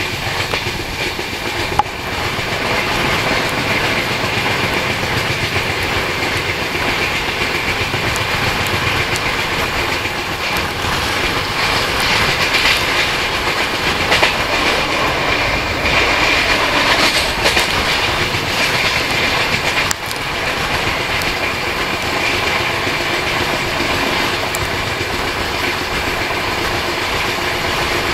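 Jharkhand Swarna Jayanti Express coaches running at speed, heard from an open coach door: wheels clattering over the rail joints under a steady rush of air.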